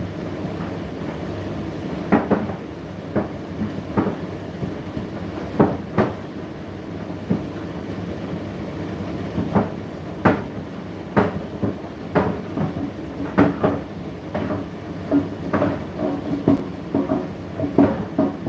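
Indesit IDC8T3 condenser tumble dryer running mid-cycle: a steady motor and drum hum with irregular knocks and clicks as the drum turns.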